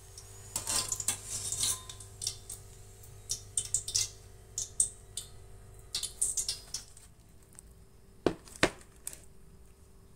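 Wire spider skimmer clinking and scraping against a stainless steel wok as fried pempek balls are lifted out of the hot oil, in a run of quick metallic clicks. Two heavier knocks come about eight seconds in.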